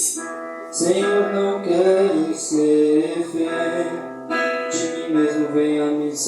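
A Christian worship song played by a band with guitar, and a voice singing a melody over it from about a second in.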